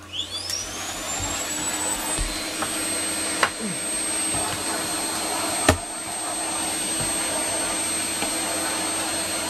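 Vacuum cleaner switched on, its motor whine rising in pitch as it spins up, then running steadily. Two sharp knocks come partway through.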